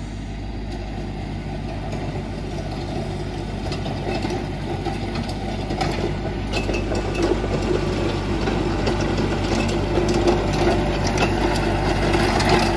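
Mahindra compact tractor's diesel engine running steadily as it pulls a box blade over loose gravel, growing louder as it comes closer. From about four seconds in, frequent clicks and clatter from the gravel and the blade join the engine.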